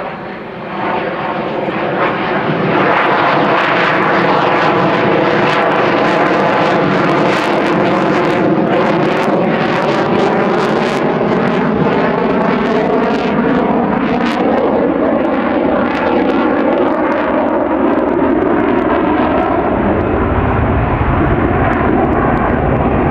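F/A-18F Super Hornet's twin jet engines passing at high power. The sound builds over the first three seconds, then stays loud and steady with sharp crackling through it.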